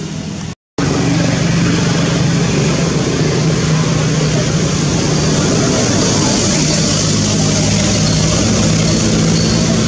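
A steady, loud motor drone with a low hum. It drops out to silence for a moment just under a second in, then resumes slightly louder.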